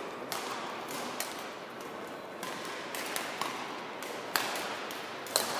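Badminton rackets striking the shuttlecock in a rally: sharp hits about a second apart, the loudest two near the end, over steady background noise.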